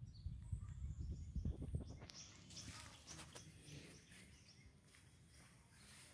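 Quiet rural outdoor ambience: a low rumble in the first two seconds, then faint bird chirps.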